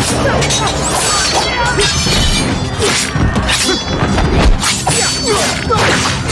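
Fight-scene sound effects: repeated punch and strike whacks with swishes, one after another, over action music.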